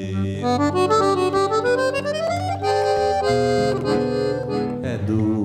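Instrumental passage with no singing: a piano accordion (sanfona) leads with a rising run of notes, then holds chords over acoustic guitar and mandolin (bandolim) accompaniment.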